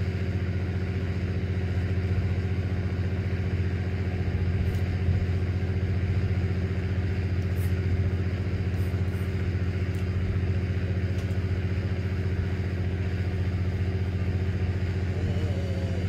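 A fishing boat's diesel engine running steadily, a low even drone with no change in speed.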